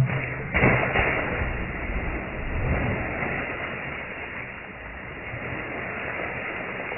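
A person diving off a wooden pier hits the lake water with a sudden splash about half a second in, followed by several seconds of churning, splashing water.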